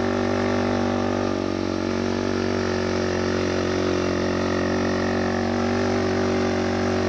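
Motorcycle engine running at a steady, unchanging speed.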